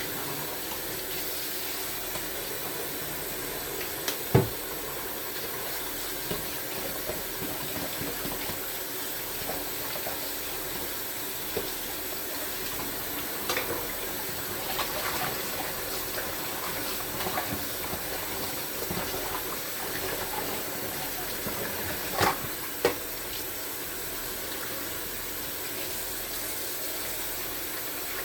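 Kitchen tap running steadily into a sink, with a few knocks and clinks of dishes. The loudest knock comes about four seconds in, and two more come close together near the end.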